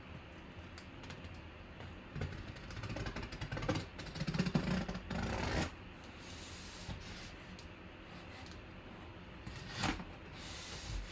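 A box cutter slicing the packing tape along the seam of a large cardboard box, with cardboard scraping and rubbing, busiest from about two to six seconds in, then lighter handling and a click near the end.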